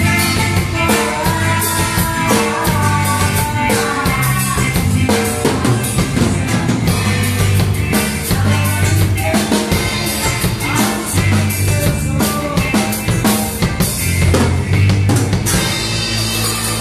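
A band playing with a full drum kit keeping a steady beat on bass drum and snare, over bass and other instruments, without vocals.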